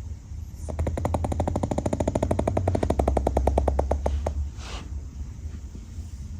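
Pug snoring: a fast, rattling snore of rapid pulses lasting about three and a half seconds, rising slightly in pitch, followed by a short breathy exhale.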